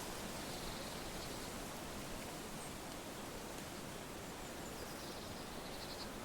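Steady wind rustling through autumn leaves. Faint high chirping comes twice, near the start and near the end.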